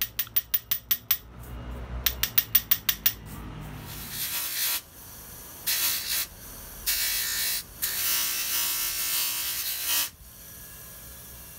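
Two quick runs of rapid, sharp ratchet-like clicks, then several bursts of hissing, rubbing noise. This is the heat-treated steel hammer head being polished.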